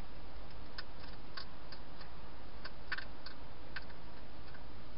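Hedgehog crunching dry food in a feeding box: irregular short sharp clicks, several close together around the middle, over a steady hiss.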